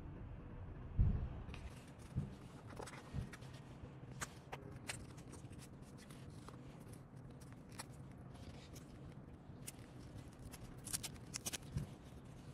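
Hands handling cardboard packaging and small kit parts: a few soft thumps in the first few seconds, then scattered crisp clicks and rustles, with a quick cluster of clicks near the end.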